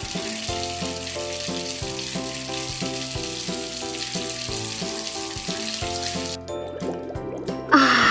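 Steady hiss of running water for about six seconds over light background music, then a short, louder sound effect right at the end.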